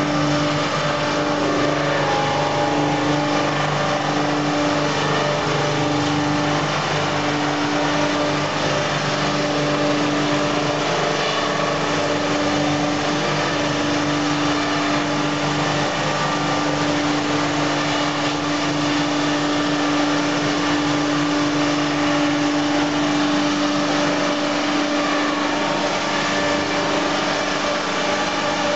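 FBST-220 milling-and-sawing line for small-diameter logs running: a steady, loud machine drone with a constant hum.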